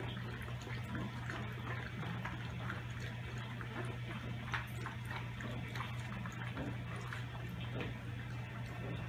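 Greater Swiss Mountain Dog and her puppies padding about, making scattered light clicks and taps over a steady low hum, with one sharper tap about halfway through.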